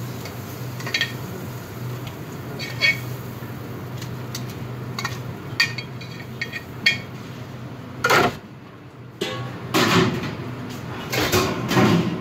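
Metal frying pan and utensils clinking and clattering in a commercial kitchen over a steady low hum from the extraction hood. Scattered light clinks come first, then louder, longer clattering bursts over the last four seconds.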